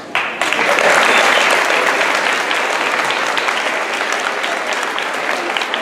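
Audience applauding, breaking out suddenly just after the start and then holding steady.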